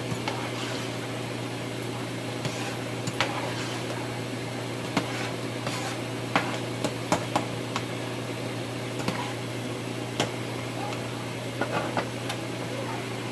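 A metal spoon stirring thick red lentil soup in a stainless steel pot, with scattered clicks and scrapes of the spoon against the pot's side. Underneath runs a steady low hum from a washing machine running.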